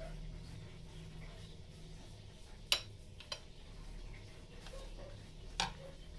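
A few sharp metal clinks of a ladle against a stainless steel cooking pot, three in all, over a steady low hum.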